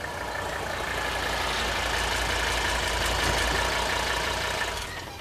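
A motor vehicle's engine running, with a low rumble that grows louder through the middle and dies away near the end.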